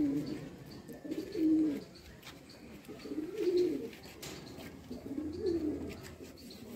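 Domestic pigeons cooing: four low coos, each rising and falling, about two seconds apart.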